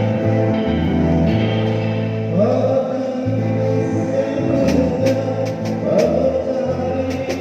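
Music with singing over held bass and chord notes; a voice comes in about two and a half seconds in and again near six seconds.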